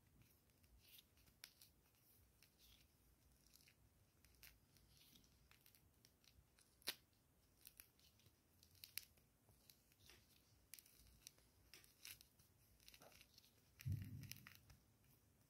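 Orange peel torn off by hand: faint scattered crackles and snaps as the rind is pried up and pulled away, with one sharper snap about halfway through. A dull low bump near the end.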